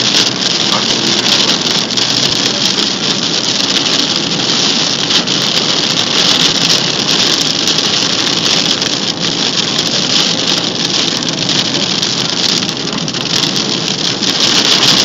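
Heavy rain on a car's roof and windshield, heard from inside the cabin as a steady hiss, over the car's engine and its tyres on the wet road.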